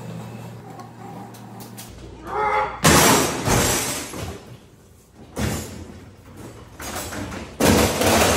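Heavy rolling steel tool chest loaded with tools being shoved across a concrete floor. The casters rumble and the contents rattle in several loud, noisy surges with thuds, the loudest about three seconds in and near the end.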